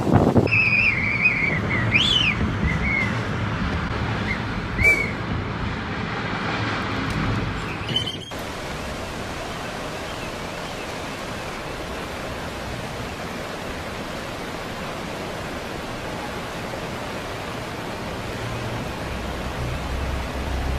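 Steady rushing noise of water, with a few faint wavering high-pitched cries in the first few seconds. The sound changes abruptly about eight seconds in to an even, flatter hiss.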